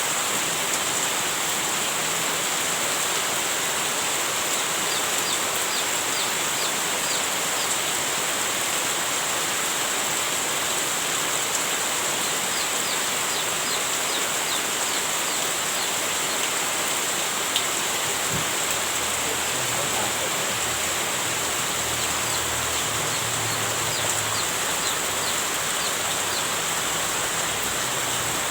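Heavy rain falling steadily, a dense, even hiss that holds the same level throughout. Faint short high ticks come and go over it, and there is a single small click about two-thirds of the way in.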